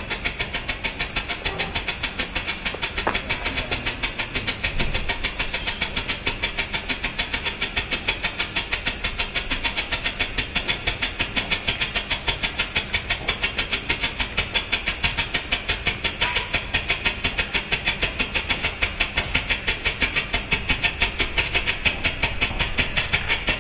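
Raccoon RA8036 1.4G ground fountain burning its white strobing flame: a loud rushing hiss that pulses rapidly and evenly, with a couple of sharp pops.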